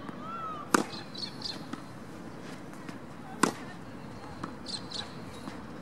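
Tennis ball struck by rackets in a baseline rally: two sharp pops about two and a half seconds apart.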